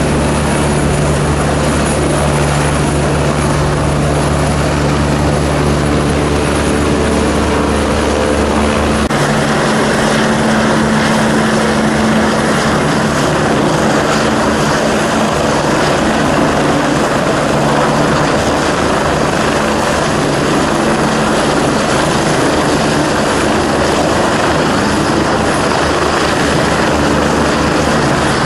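Eurocopter EC145 medical helicopter running loud and steady close by, its rotor and engine noise filling the air. About nine seconds in, the deep low hum drops away and a high whine comes through.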